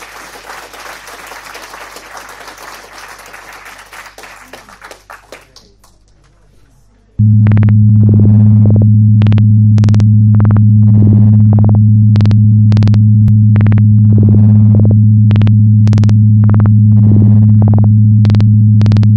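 A noisy crowd with scattered clapping fades out over the first six seconds. About seven seconds in, a loud, steady, low synthesizer drone starts, with short sharp hits about twice a second: electronic background music.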